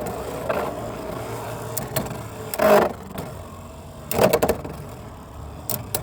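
Beyblade X spinning tops whirring in a plastic stadium and clashing: a loud hit a little under three seconds in and a quick run of sharp hits about four seconds in, with the whirring fading through the second half.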